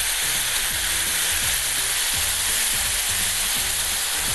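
Spiced sauce sizzling in a hot frying pan with fish fillets, a steady hiss.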